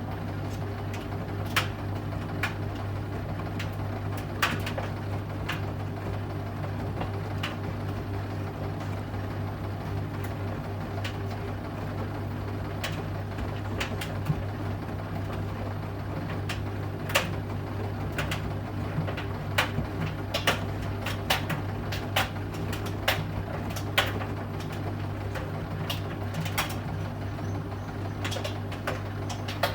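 Bosch Serie 8 front-loading washing machine in its main wash, its drum motor humming steadily while the drum turns. Irregular sharp clicks and knocks sound over the hum, more often in the second half.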